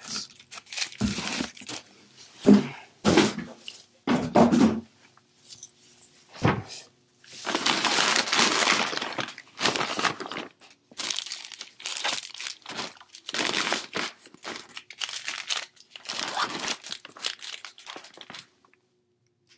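Plastic chip bags crinkling and rustling as they are handled and set down, in repeated bursts with one long stretch of crinkling near the middle. Several dull knocks in the first five seconds.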